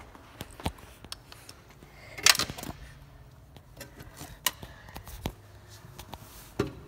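Scattered light clicks and knocks, with one louder rustling scuff about two seconds in: a phone being handled and someone moving about beside a fire truck.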